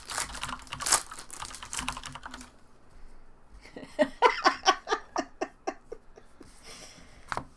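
A rapid run of light clicks and taps for the first two seconds or so, then a short burst of laughter about four seconds in.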